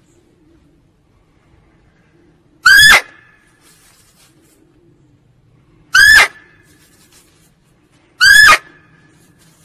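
Female muntjac (barking deer) calling: three short, sharp, high barks a few seconds apart, each quickly rising and falling in pitch.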